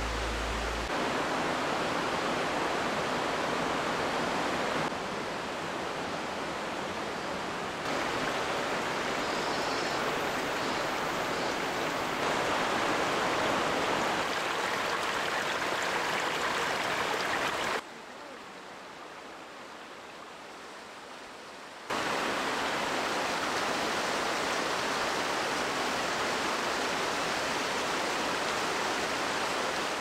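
Water falling and rushing over rocks, a steady full hiss. Its level shifts at several cuts and drops lower for a few seconds past the middle.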